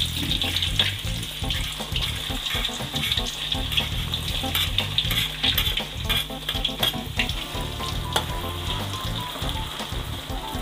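Cubed potatoes sizzling in hot oil in a wok as more are pushed in off a wooden board, with scattered clicks and scrapes of a metal spatula against the board and pan.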